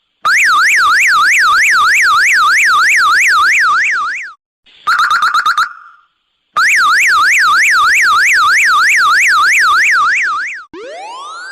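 Electronic emergency-vehicle siren in a fast yelp, its pitch sweeping up and down about three to four times a second. It sounds twice, each run lasting about four seconds and cutting off abruptly. Between the runs comes a brief burst of rapid beeping pulses, and near the end a quieter series of slow rising chirp tones begins.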